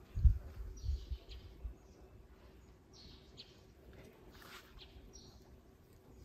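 Birds chirping outdoors: short high calls scattered over several seconds. Low rumbling thumps on the microphone in the first second and a half, the loudest just after the start.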